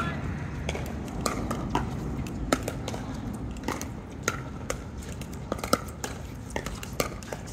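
Pickleball paddles hitting the hard plastic ball in rallies: sharp, irregular pocks about one or two a second, some louder and nearer than others, over a steady low rumble.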